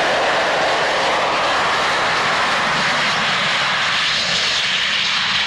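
Fixed-wing display aircraft flying past: loud, steady engine noise that shifts higher in pitch over the last couple of seconds.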